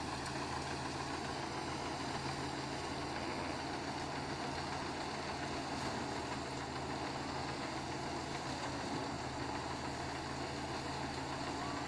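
Rice threshing machine running steadily as sheaves of rice are fed in: a continuous engine drone with a noisy whir from the threshing drum over it.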